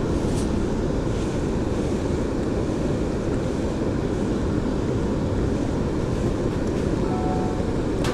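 Steady rushing of water spilling over a dam, an even, low-pitched noise with no breaks.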